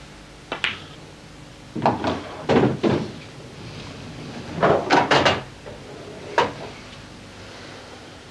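Pool balls clicking: sharp, ringing knocks of cue on cue ball and of balls striking one another. A single knock comes early, clusters of knocks follow around two, three and five seconds in, and one more comes about six and a half seconds in.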